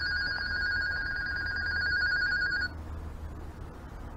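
Midland handheld two-way radio's call alert: a trilling electronic ring made of two close high tones, set off by the radio's call button. It cuts off about two and a half seconds in, leaving a low hum.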